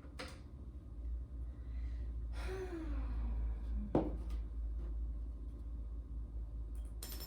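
A person's breathy sigh falling in pitch, followed about a second later by a single sharp knock, over a steady low hum.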